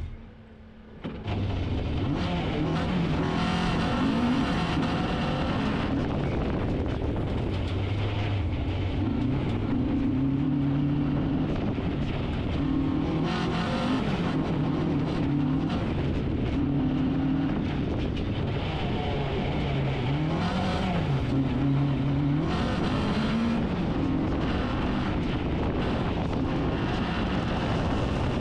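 Renault Clio F2000-class rally car's engine heard from inside the cabin, revving up and dropping back again and again as it is driven hard through the gears on a gravel road, over the steady noise of tyres on loose gravel. The sound dips briefly at the very start, then runs on at full volume.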